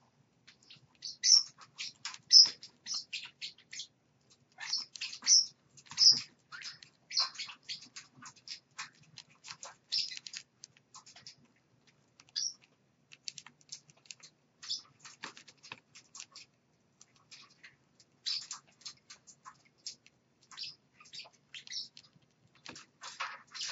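Irregular quick clicks and short high chirps from small caged parrots, with the adult bird pecking at its seed dish.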